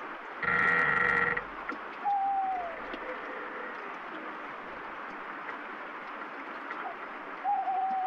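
Steady rain falling. About half a second in, a wooden branch creaks once for about a second, the loudest sound. An owl hoots twice with a short falling note, about two seconds in and again near the end.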